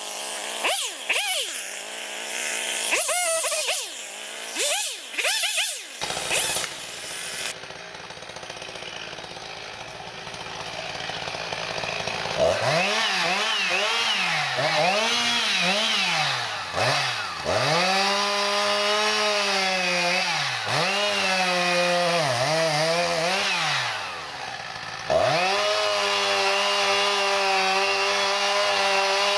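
Two-stroke chainsaw with a carbide-tipped saw chain, revved up and down in short blips while limbing branches. After a quieter stretch of several seconds it revs up and down again several times. Near the end it is held steadily at high revs while cutting into the trunk.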